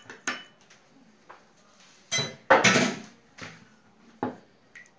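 A utensil clinking and knocking against a small glass bowl of egg yolk and milk glaze: a handful of separate short clinks, with a louder, scrapier cluster about two to three seconds in.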